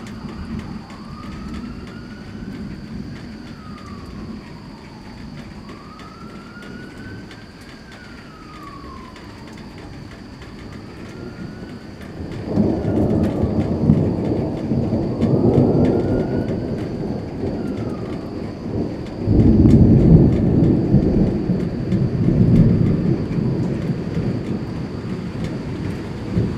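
Thunderstorm with rain falling steadily. Two loud rolls of thunder break in, the first about halfway through and a louder one a few seconds later, each rumbling on for several seconds.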